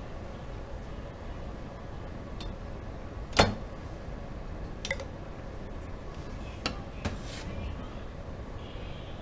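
A kitchen knife set down on a plastic cutting board with one sharp clack, followed by a few lighter clicks and knocks as chopsticks and a plate are handled on a stainless steel counter. A steady low background noise runs underneath.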